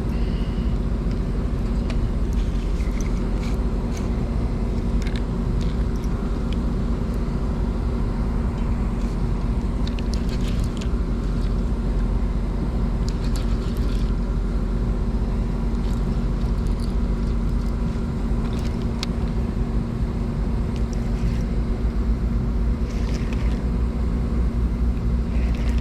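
A steady low engine hum with constant droning tones, with a few faint short ticks scattered through it.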